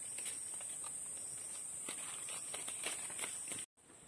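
Insects chirring in a steady, high-pitched drone, with scattered faint ticks. It cuts out abruptly near the end and comes back fainter.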